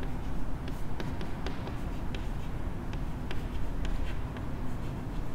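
Chalk writing on a chalkboard: a run of short, sharp taps and light scratches as letters are formed, over a steady low background hum.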